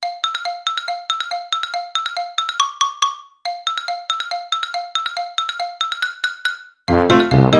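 A marimba-like melody of short, quickly repeated struck notes, played as two matching phrases with a brief pause between them. Just before the end, loud full music with a heavy bass comes in.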